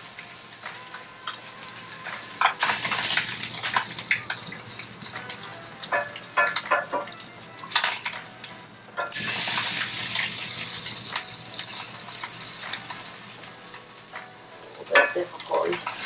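Crappie fillets sizzling in a frying pan on a gas stove, with a utensil clicking and scraping against the pan as the pieces are moved. The sizzle swells twice, about two and a half seconds in and again around nine seconds in.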